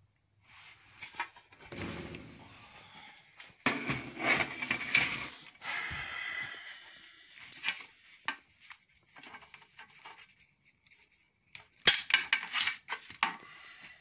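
Metal robot parts and tools being handled, knocked and set down on an aluminium chequer-plate bench: irregular clatter and rustling, with a quick run of sharp metallic clicks and knocks near the end.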